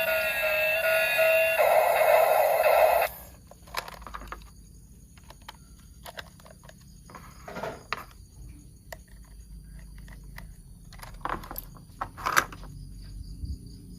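A short electronic tune with steady held tones plays and cuts off suddenly about three seconds in. Then come scattered light clicks and knocks of plastic toy parts being handled.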